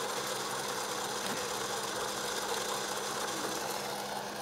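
Small motorized egg-decorating spinner running steadily, a constant motor hum as it turns the egg.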